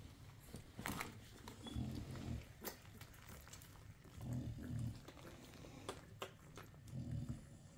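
Nano American bully puppies nursing from their mother: low rumbling grunts or breaths about every two and a half seconds, with a few sharp clicks and smacks between them.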